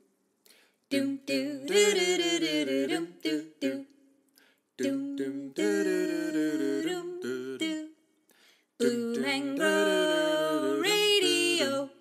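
Outro jingle: a wordless a cappella vocal tune, hummed and sung in three phrases with short pauses between them.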